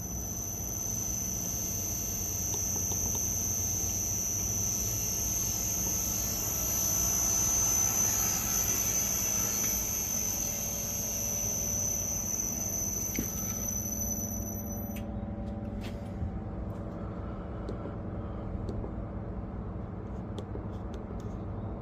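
Reaper 2x72 belt grinder's motor running unloaded on a newly installed variable frequency drive, with a steady high-pitched whine over a low hum. The whine cuts off suddenly about fifteen seconds in, with a few clicks, while the low running hum goes on.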